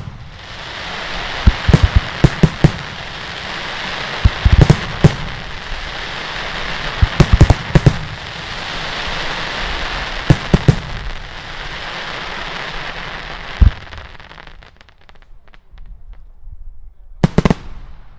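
Daylight fireworks: a dense, continuous crackling, with groups of loud bangs every few seconds. The crackle dies away about three-quarters of the way through, and a last pair of bangs comes near the end.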